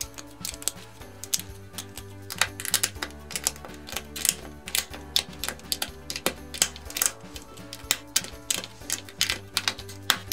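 LEGO plastic bricks and plates clicking as they are snapped and pressed together by hand: many quick, irregular clicks. Light background music with held tones plays under them.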